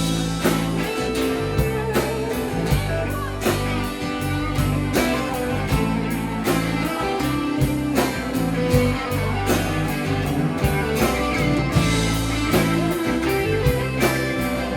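Live rock band playing an instrumental passage of a slow ballad: guitar to the fore over bass and a steady drum beat.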